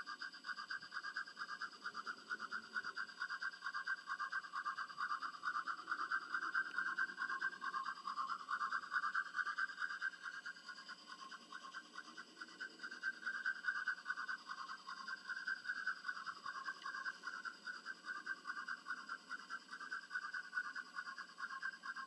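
Bachmann 4-6-0 model steam locomotive's SoundTraxx DCC sound decoder playing rapid, even steam chuffing through the model's small onboard speaker as it runs along the track.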